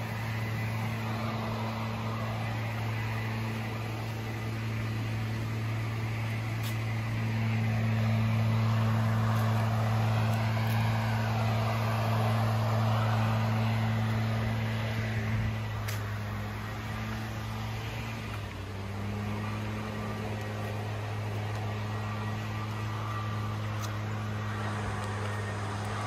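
A steady low motor hum that drops slightly in pitch about two-thirds of the way through, over a faint rushing hiss.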